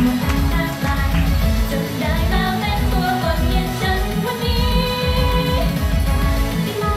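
Live pop-idol performance through a stage PA: female vocals singing into microphones over a backing track with a steady beat. One note is held for about a second a little past the middle.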